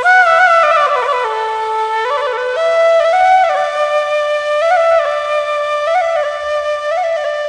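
Flute playing a slow single-line melody, the notes stepping and gliding down and up, one after another without breaks.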